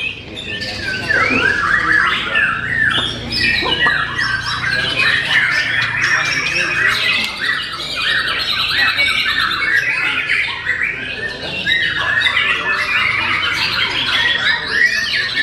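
White-rumped shama song: a loud, unbroken stream of quick, varied whistles and chattering phrases, crowded and overlapping throughout.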